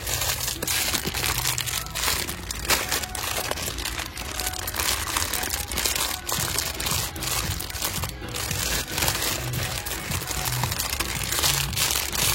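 Continuous dense crinkling and crackling, like plastic being handled, over background music with a steady bass; it starts and stops abruptly.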